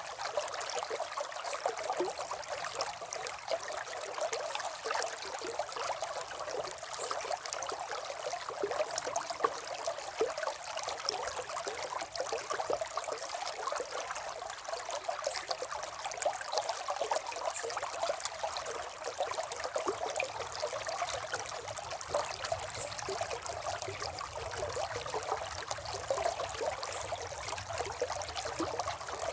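River water running over rocks, a steady rushing with small trickles and splashes.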